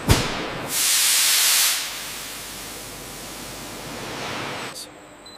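A sharp thump, then a loud burst of steam hissing for about a second, settling into a softer steady hiss that dies away near the end. The steam is venting from milk pasteurizer pipework.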